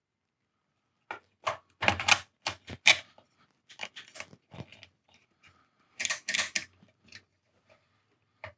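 Vacuum tube being worked in and out of its amp socket after a spray of contact cleaner: a run of short clicks and clacks of the tube pins in the socket, in two clusters, starting about a second in and again near six seconds, with faint ticks between.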